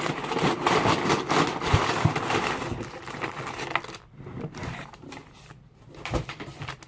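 Packing paper rustling and crinkling as it is handled and pulled out of a box. It is busy and fairly loud for about the first four seconds, then thins to a few scattered crinkles.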